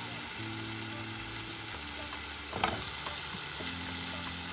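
Tomato sauce with sliced carrots sizzling in a pot, with one sharp knock about two and a half seconds in.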